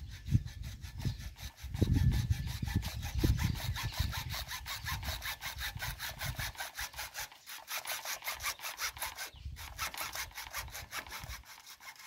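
Hacksaw cutting through black HDPE plastic pipe in steady back-and-forth strokes, with a brief pause partway through.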